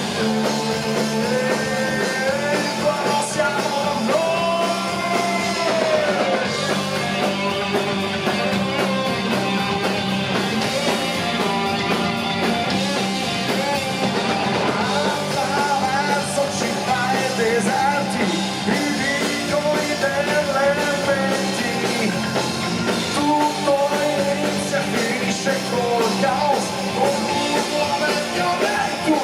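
Rock band playing an instrumental passage, a lead electric guitar line bending up and down over bass and drums.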